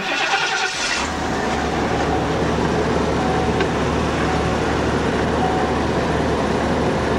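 A vehicle engine starts about a second in and then runs steadily at idle.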